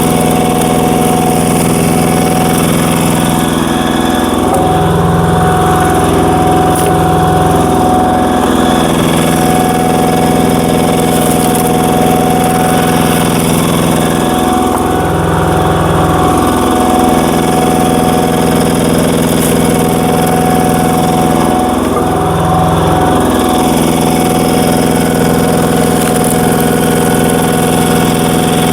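Single-cylinder diesel engine of a walk-behind power tiller running steadily while it drives a cone screw log splitter. Three times its pitch sags for a second or two and then recovers, the engine lugging under load as the screw bores into tough, knotty firewood.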